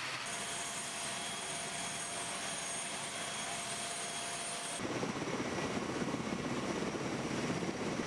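Steady aircraft engine noise from a C-130 Hercules transport plane on the apron: a constant rush with several high, thin whining tones. About five seconds in it cuts abruptly to a louder, rougher rush of outdoor noise without the whine.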